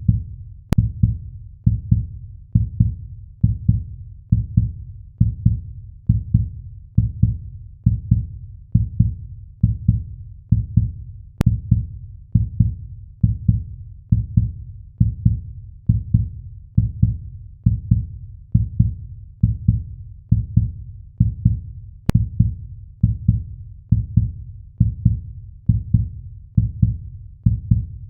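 Heartbeat sound effect: steady, regular lub-dub double thumps, deep and muffled, a little under one beat a second.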